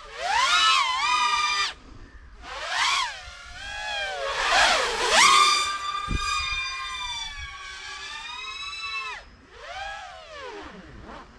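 FPV quadcopter's XNova 2204 2300kv brushless motors and HQProp 5.1-inch three-blade props whining in bursts. The pitch swoops up and down with each change of throttle. A longer held whine runs from about four to nine seconds in.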